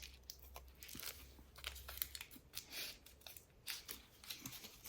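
Faint, scattered crackles and clicks of a venison-and-beef meat snack stick being handled, bitten and chewed, with its plastic wrapper crinkling.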